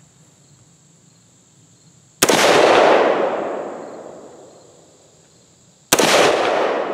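Two rifle shots from an AR-15 firing 5.56 ammunition, about three and a half seconds apart: the first about two seconds in, the second near the end. Each shot is a sharp crack followed by a long echo that fades over two to three seconds.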